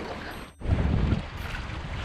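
Wind buffeting the microphone with a gusty low rumble, over the wash of choppy sea against a rocky shore. The sound cuts out briefly about half a second in, then the rumble comes back stronger.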